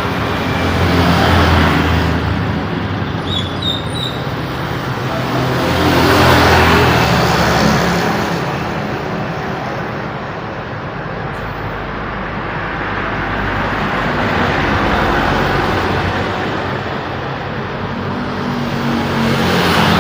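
Busy road traffic: motor vehicles passing one after another, with a low engine hum under the tyre noise. It swells as vehicles go by, about a second and a half in, around six seconds in, and again near fifteen seconds.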